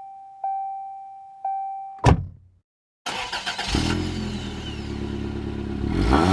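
Three ringing chime tones about a second apart and a sharp sweeping hit, then after a brief silence a Ford C-Max 1.8 TDCi diesel engine idling and revved up near the end.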